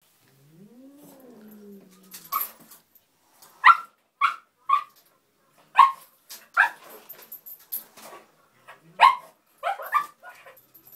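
Small dog giving a long whine that rises and falls, then about ten short, sharp barks in an uneven string. It is barking for a cat to come and play.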